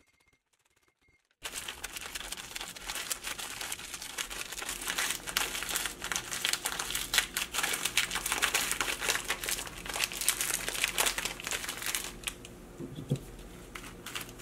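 Crinkly wrapper of a Nature Valley crunchy granola bar being crushed and squeezed, breaking the bar into small pieces inside. Dense crackling starts about a second and a half in and eases off near the end.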